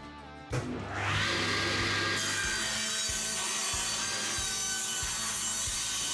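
Inca table saw switched on about half a second in, its motor spinning up to speed and then running steadily. From about two seconds in the blade rips a softwood board fed along the fence, adding a bright hiss of cutting.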